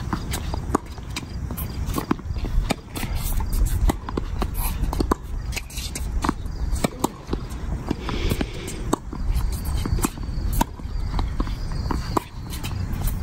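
Tennis rally on an outdoor hard court: sharp pops of racket strikes and ball bounces, with players' footsteps on the court surface, over a steady low rumble.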